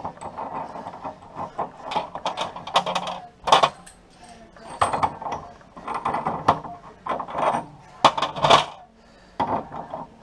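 Brass tap housing clinking and scraping against the tap body as it is fitted back in and turned by hand: an irregular string of small, sharp metal clicks.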